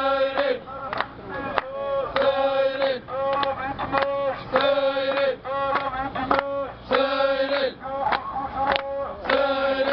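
Protesters chanting a slogan in rhythm, the same call repeated about every two and a half seconds, each time ending on a long held syllable.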